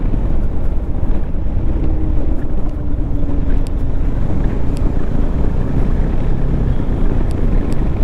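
Bajaj Dominar 400 motorcycle's single-cylinder engine running steadily as the bike is ridden, with wind rushing over the rider's microphone.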